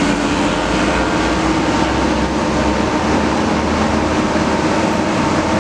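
Komatsu PC200 excavator's diesel engine running steadily under load, a constant drone with a strong low hum.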